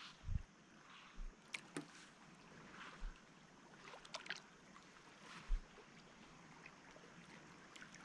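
Quiet riverbank ambience: a faint steady wash of moving river water, with a few sharp clicks and several soft low bumps.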